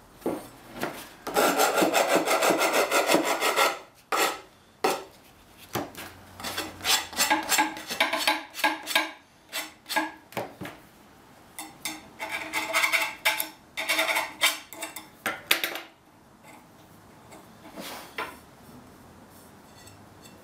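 Hand-sanding the flattened end of a half-inch copper pipe with an abrasive, smoothing the edges and burrs off the metal. A steady run of scraping strokes for a couple of seconds, then many short separate rubs, ending with one last stroke near the end.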